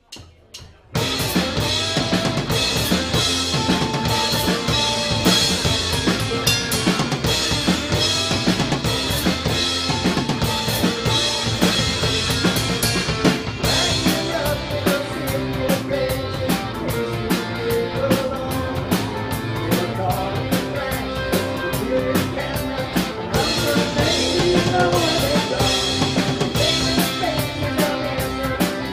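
Celtic rock band playing live, an instrumental passage with the drum kit prominent over electric and acoustic guitars, bass guitar and mandolin. The music starts suddenly about a second in.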